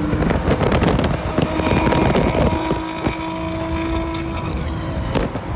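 Car driving at highway speed, heard from inside: engine, road and wind noise.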